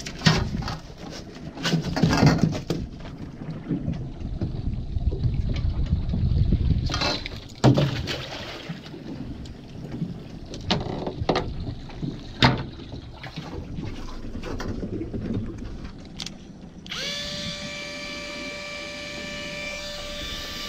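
Irregular knocks and clatter, then, near the end, an electric jigging reel's motor starts with a short rising whine and winds on at a steady pitch.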